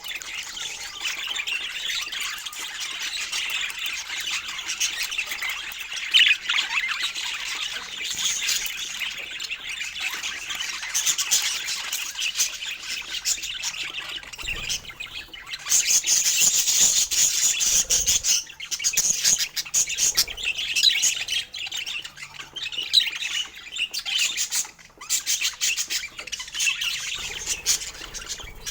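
Budgerigars chattering and chirping continuously in a busy warble, with a louder, harsher stretch about two-thirds of the way through.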